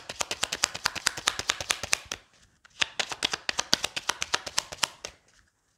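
A deck of fortune-telling cards being shuffled by hand: quick clicking of the cards, about ten a second, in two runs with a short pause about two seconds in, stopping about five seconds in.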